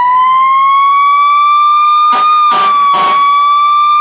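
Fire truck siren wailing, its pitch climbing slowly to a held high note and easing down near the end. About two to three seconds in, three short noisy bursts cut across it.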